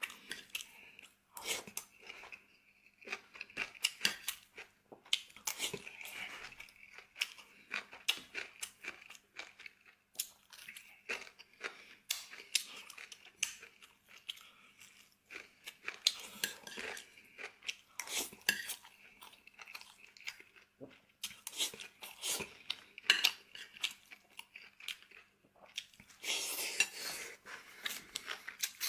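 Close-up chewing and biting of tomato-braised pork ribs and rice, wet mouth sounds with irregular crunchy bites, and now and then utensils clinking against the bowl.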